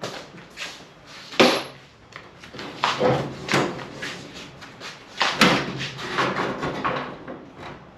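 Irregular knocks and clatter from work on a sectional garage door, the loudest knock about a second and a half in, more around three and five and a half seconds in.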